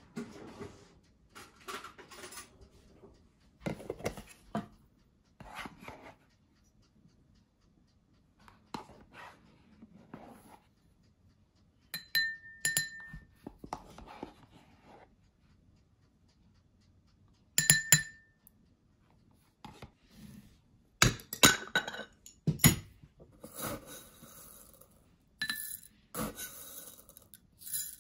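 Tabletop handling of glassware and food. A stemmed glass clinks and rings a few times as yogurt is spooned into it from a plastic tub. In the last few seconds, dry chocolate cereal is scooped from a glass jar with a wooden scoop and rattles into the glass.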